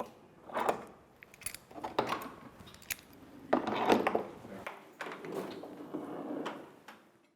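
Clattering and clicking handling sounds, with several louder noisy swells about a second apart.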